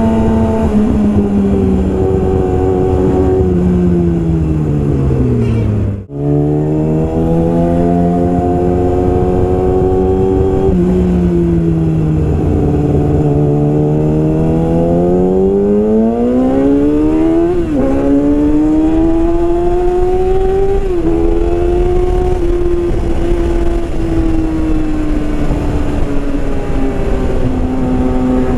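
Yamaha R6 inline-four engine through a full Yoshimura exhaust, ridden at changing speeds: the engine note falls away, then rises and falls again over several seconds, with a few abrupt pitch steps from gear changes. The sound breaks off for a moment about six seconds in.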